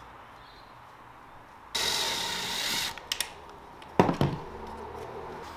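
Hands working a circular saw on a board: a rasping scrape lasting about a second, a few light clicks, then two sharp knocks near the end.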